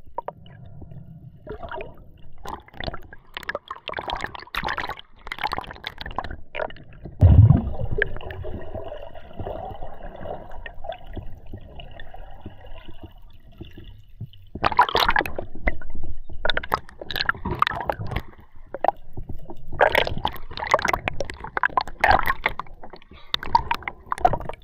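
Water gurgling and splashing around an underwater camera as a freediver swims a speared cobia toward the surface, with one heavy thump about seven seconds in. The splashing gets louder and busier in the second half.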